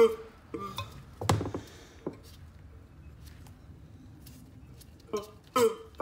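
Metal knocks and clinks from the internals of a cut-open hermetic reciprocating compressor as the rotor and crank assembly are handled, with a sharp knock at the start and a louder one about a second in. From about five seconds in, short pitched squeaks repeat about twice a second as the assembly is worked and the pistons move.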